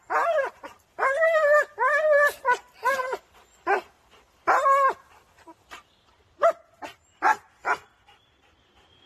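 A large black-and-tan shepherd-type dog barking excitedly at a tree branch it is grabbing, in a run of about ten barks, some short and some drawn out, which stop about eight seconds in.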